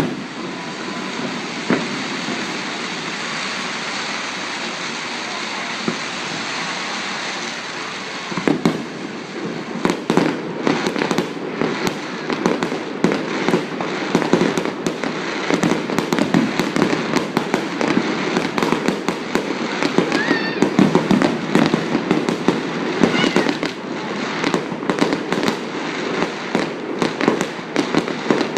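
Fireworks display: a steady hubbub for the first eight seconds or so, then a dense, rapid barrage of bangs and crackling that keeps going, with a couple of short rising whistles in the middle.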